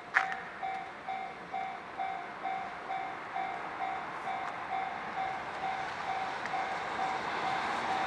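Japanese level-crossing warning bell ringing at about two strikes a second, with one sharp click just after the start. The sound of an approaching train grows steadily louder under the bell toward the end.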